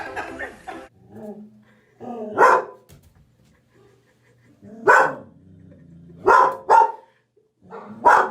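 A dog barking about five times at uneven intervals, with two barks in quick succession a little after the middle.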